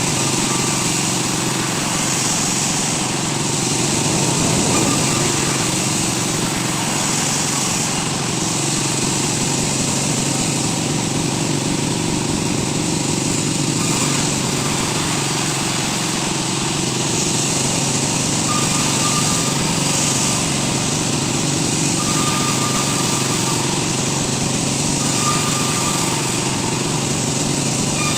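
A woodworking machine running steadily, a continuous motor or small-engine noise with no pauses.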